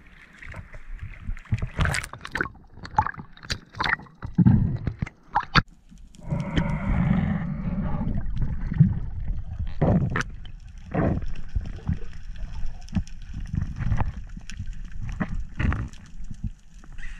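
Sea water splashing and gurgling around an action camera as a spearfisher dives from the surface, with a run of sharp splashes in the first few seconds, then muffled underwater rushing and bubbling.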